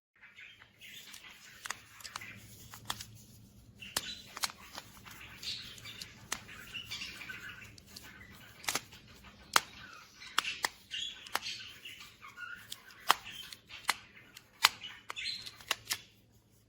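Irregular sharp clicks, a dozen or more, as the magnetic origami fidget cube's pieces snap together and are handled while it is folded.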